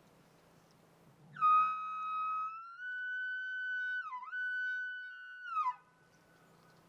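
Bull elk bugling: one long, high whistling call that starts about a second in, rises a little and holds for about four seconds with a brief dip in the middle, then drops away at the end.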